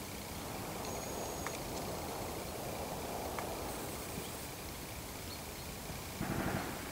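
Outdoor ambience of horses in a grass paddock: a steady rushing background noise as the horses move about, with a brief louder, low-pitched sound about six seconds in.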